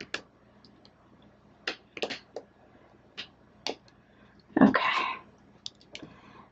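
A few scattered light clicks and taps from handling and tilting a stretched canvas, with a brief murmur of a woman's voice about two-thirds of the way through.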